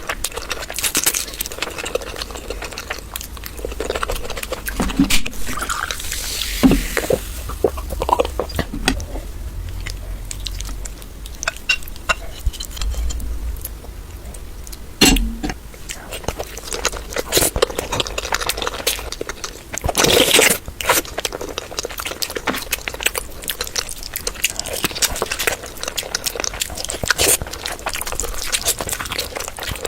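Eating sounds from a meal of curry: irregular clicks, scrapes and wet, squelchy noises of food being handled, plate and utensil contact, and chewing, with a louder scrape about twenty seconds in.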